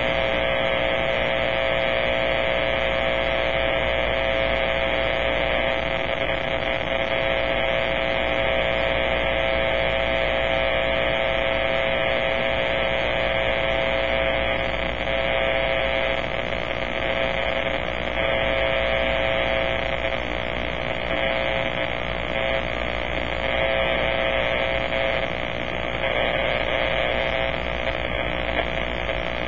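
Powerline noise received on a Kenwood transceiver tuned to 50.100 MHz AM in the 6-metre band: a steady, harsh buzz from the receiver's audio. It is radio-frequency interference from a fault on the power lines, strong enough to reach 50 MHz.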